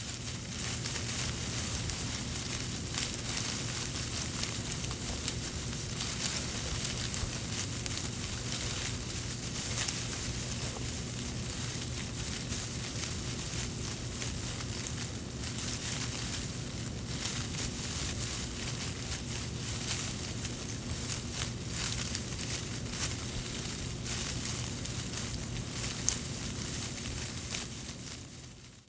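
Leafy bushes and tree branches rustling and crackling without a break as someone runs through woodland undergrowth, with one sharper snap near the end.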